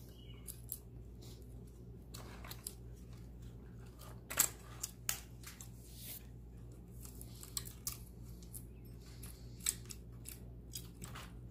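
Saw chain links clicking and rattling against the chainsaw's guide bar and drive sprocket as the chain is worked on by hand, in scattered light clicks, the sharpest about four seconds in. A steady low hum runs underneath.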